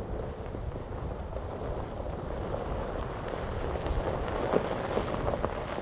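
Tyres of a Kia EV9 electric SUV crunching slowly over gravel as it approaches, growing louder, with a few sharp crackles about four and a half seconds in. Wind buffets the microphone throughout.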